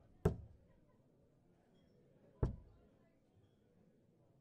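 Two steel-tip darts striking a Winmau Blade 4 sisal bristle dartboard, about two seconds apart, each a single sharp thud that dies away quickly.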